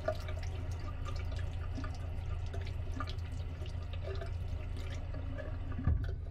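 Tap water running from a single-lever mixer faucet into a washbasin and splashing over a hand, over a steady low hum. Near the end there is a thump and the water stops.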